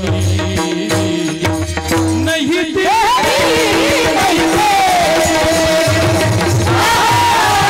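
Devotional kirtan music: a harmonium holds steady notes over a hand drum playing quick strokes. About three seconds in, singing comes in with long gliding notes over a busier, hissing jingle of percussion.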